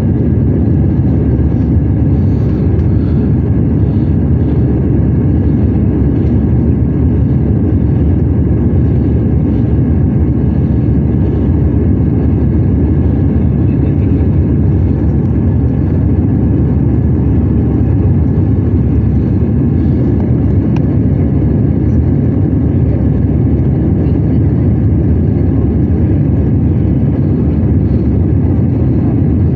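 Cabin noise of an Airbus A320-200 in its climb after takeoff: the engines and rushing air make a loud, steady, deep rumble, with a few faint steady tones above it.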